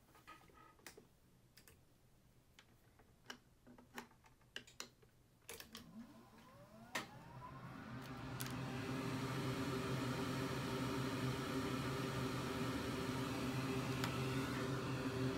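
A few small clicks and taps of tools on the bench. About six seconds in, an electric fan motor spins up with a rising whine and settles into a steady, much louder whir.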